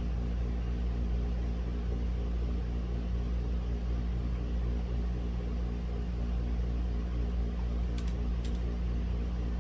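A steady low mechanical hum with a droning, many-toned character, with two faint clicks about half a second apart near the end.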